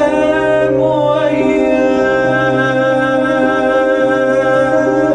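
Arabic pop song: a man sings a long held note into a microphone over a steady instrumental backing.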